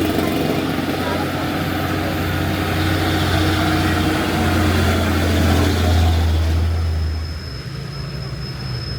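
Car engine running with a steady low drone and road noise. The drone drops away about seven and a half seconds in, leaving a thin steady high tone.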